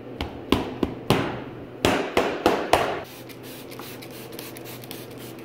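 A thin skewer clicking and knocking against metal bread pans as risen loaves are pricked, about seven sharp taps in the first three seconds. After that only a steady low hum remains.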